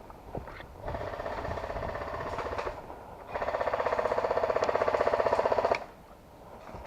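Airsoft electric gun firing on full auto in two long bursts, a rapid even rattle of about twenty shots a second; the second burst is louder.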